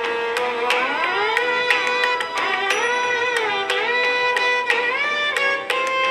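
Instrumental music: one ornamented melody line that slides between notes, in a Carnatic-like style.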